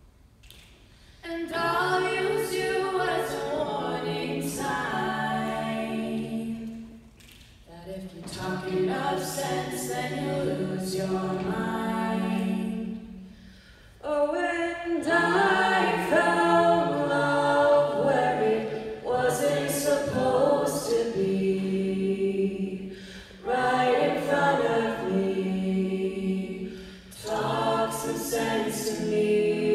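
All-female a cappella group singing: solo female voices over sustained backing harmonies from the group, in phrases with short breaks between them. It begins with about a second of near quiet.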